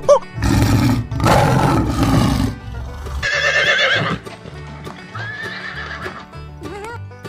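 Horse neighing: a loud breathy burst, then a quavering whinny, over steady background music.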